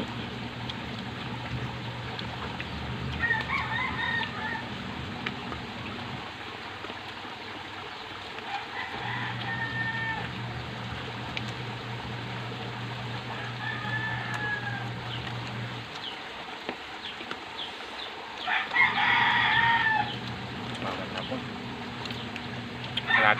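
Rooster crowing about five times, each crow a held call of a second or so, the loudest near the end. A steady low hum runs underneath and cuts out twice.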